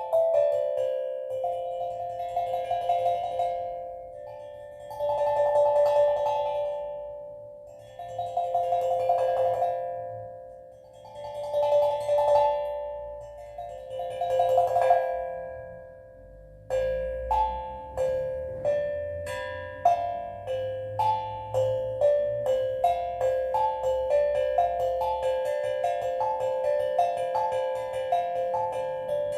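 Steel drum played in slow swells of rolled notes that each ring and fade away, changing about two-thirds of the way through to a quicker run of single struck notes, with a faint low hum underneath.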